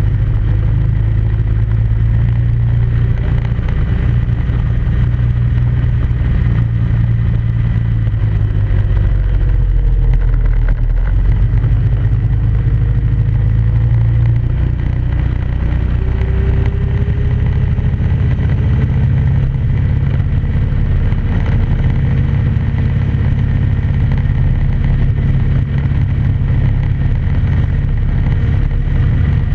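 ATV engine running under way on a trail, a steady low drone whose pitch rises and falls gently as the throttle changes.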